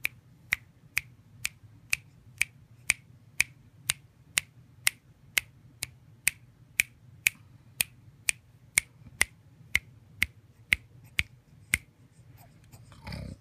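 Sharp, very regular clicking, about two clicks a second, that stops near the end, followed by a short muffled bump.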